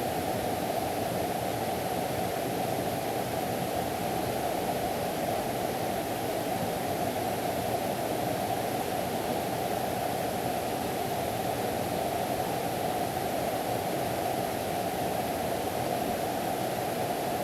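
A mountain valley stream rushing steadily: an even, unbroken hiss of running water.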